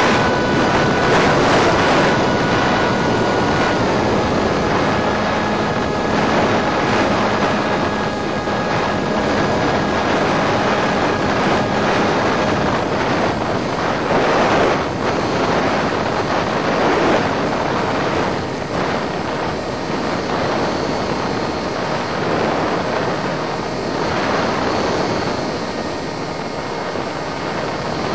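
Electric motor and propeller of an EasyStar foam RC plane running under power during launch and climb, buried in heavy wind rush. A steady whine from the motor fades out about twelve seconds in as the throttle comes back.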